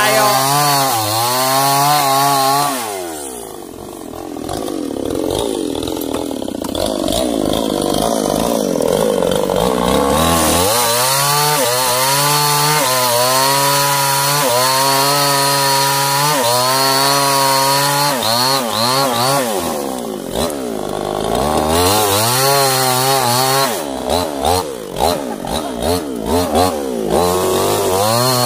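Petrol chainsaw cutting through sengon logs, its engine revving up and down as the throttle is worked. About three seconds in it eases off for several seconds, then runs hard in the cut again, and near the end it revs in short, choppy blips.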